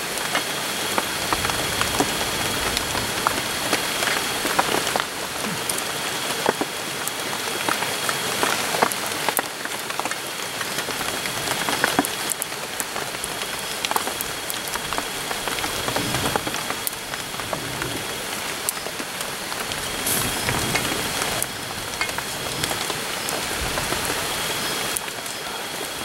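Meat sizzling as it fries in a small metal pot over a wood fire: a steady hiss full of small pops and crackles.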